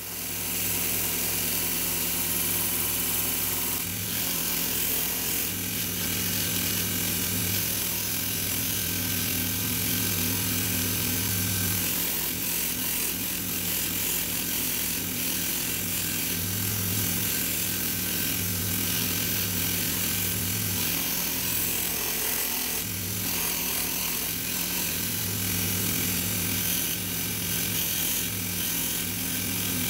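Belt grinder running steadily while a stabilized red cedar handle-scale blank is pressed against the abrasive belt and ground down to its marked outline. The sound of the belt cutting the wood comes and goes over the steady motor hum as the piece is pushed on and eased off.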